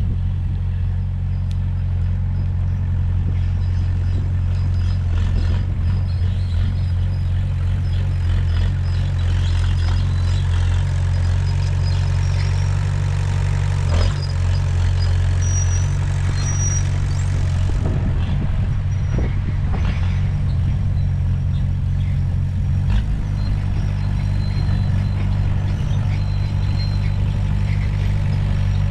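Komatsu bulldozer's diesel engine running steadily at work, with a few sharp metal clanks midway and a slight shift in the engine note later on.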